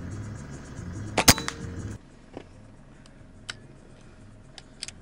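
A single rifle shot fired from a vehicle window, a sharp loud crack about a second in, over the low rumble of the idling vehicle. The rumble stops abruptly soon after, leaving a quiet stretch with a few faint clicks.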